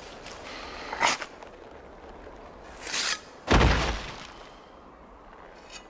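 Film sound effects: a sharp hit about a second in, a short swish near three seconds, then a heavy thud with a deep low end as a body falls onto the sand.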